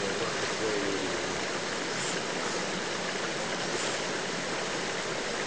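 Fast-running water of a spring-fed creek, running steadily with an even rushing hiss.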